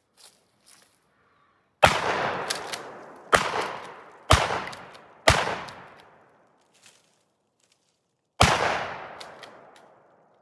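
Five gunshots, each followed by a long echo that rolls away: four about a second apart, then one more after a pause of about three seconds.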